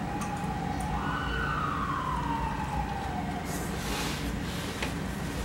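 Emergency vehicle siren wailing: a steady tone that jumps up about a second in, then glides slowly down and fades out by about three and a half seconds.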